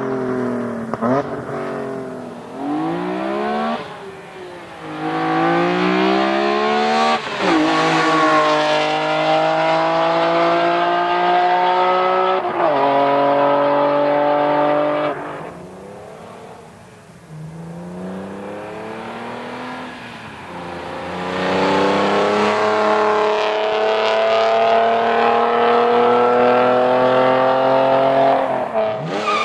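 BMW E46 M3's S54 inline-six, fitted with a CSL carbon airbox, AP headers and muffler and no catalytic converters, accelerating hard: the revs climb and drop sharply at several gear changes, ease off around the middle, then climb again through more gears.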